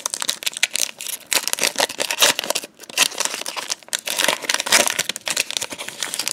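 Foil trading-card booster-pack wrapper crinkling as it is gripped and torn open by hand: a dense, irregular run of sharp crackles.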